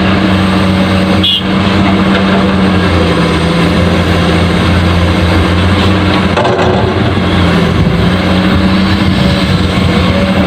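Truck engine running steadily, a low, even drone whose pitch shifts slightly a few times.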